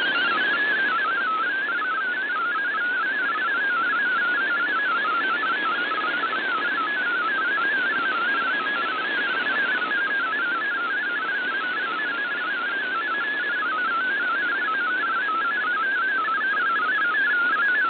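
MFSK32 digital text signal received off shortwave: a fast, steady warble of tones hopping up and down over constant static hiss. Reception is marginal, with the signal only modestly above the noise, and the tones carry text that decodes as it plays.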